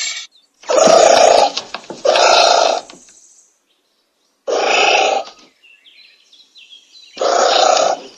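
Anteater calls: four short calls, each under a second, with gaps of one to two seconds between them.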